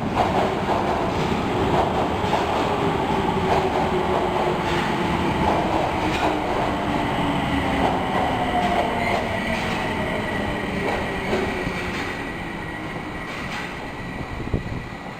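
Osaka Metro Tanimachi Line subway train braking: the whine of its electric traction motors falls steadily in pitch, over steady rail noise and wheel clicks on the rail joints, slowly getting quieter.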